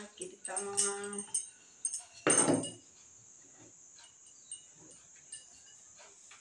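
A short held voice-like call in the first second, then a loud clatter about two seconds in. After that come faint light taps of a rolling pin on a wooden board as puri dough is rolled out.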